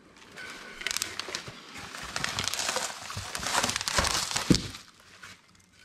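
Bubble wrap and plastic packaging crinkling as wrapped parts are handled and shifted in a cardboard box, with a couple of knocks near the end.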